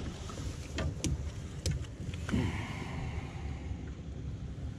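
A landing net holding a rainbow trout is handled on a fiberglass boat floor while the fish is worked free of the mesh, giving a few light knocks and rustles over a low steady rumble.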